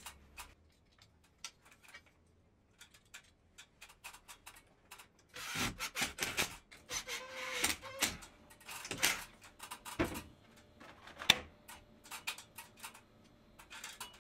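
Scraping, rubbing and clicking of fitting work on a wall, quiet for the first few seconds and then busier, with a cordless drill-driver giving a short whine as it drives a screw into the aluminium sign frame; a few sharp knocks follow.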